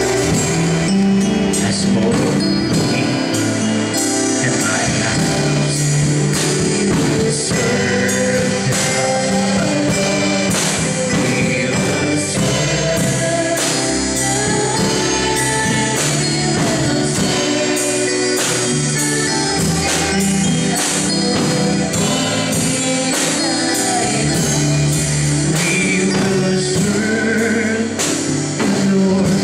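Gospel worship song: a man singing into a microphone over an instrumental accompaniment with a steady beat.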